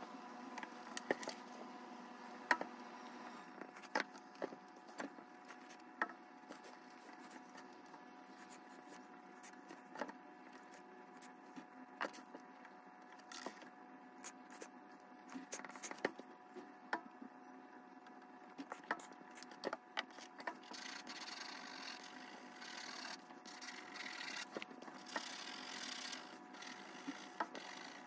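Faint scratching of a pencil and rubbing of an eraser on a sheet of drawing paper lying on a wooden desk, with scattered light taps and clicks, over a steady low hum. The scratching grows denser in the last several seconds as the pencil shades in the dark background.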